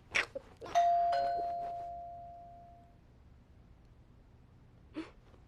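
Doorbell chime ringing a two-note ding-dong, high note then lower note, both fading out over about two seconds.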